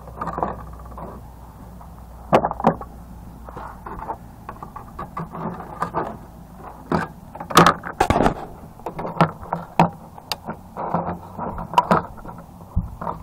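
Irregular clicks, knocks and scrapes of a hard plastic battery-backup case being handled while its brass outlet leads are tugged and pried at by hand.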